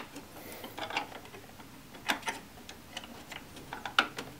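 A few scattered plastic clicks and taps as the battery cover is snapped back into the compartment of a Casio SE-C450 cash register. The sharpest clicks come about two seconds in and near the end.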